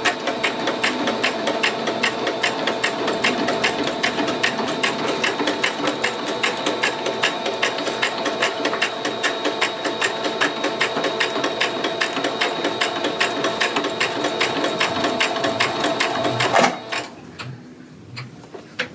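Electric sewing machine running steadily, stitching a seam with a rapid, even ticking over a steady motor whine, then stopping near the end.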